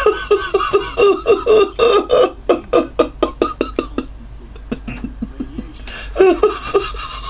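Hearty laughter in rapid ha-ha bursts, about four or five a second, for roughly the first four seconds; it dies down, then laughter and voice sounds pick up again near the end.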